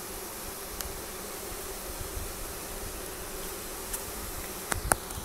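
Honeybees buzzing steadily as a newly installed package of bees flies around the hive. A couple of sharp clicks come close together near the end.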